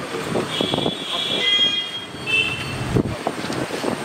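Roadside traffic noise, with high-pitched horn toots twice and a sharp knock about three seconds in.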